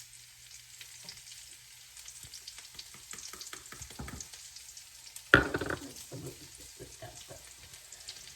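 Garlic and bacon frying in a pan with a steady sizzle, with the small scrapes and clicks of a utensil stirring; a single sharp knock about five seconds in.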